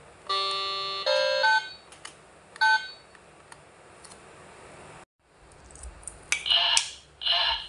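Buttons pressed on a plastic children's toy phone give short electronic beeps and tones, the first one held for nearly a second. After a brief pause there is a sharp click, then two short electronic sounds from a novelty coin-bank toy.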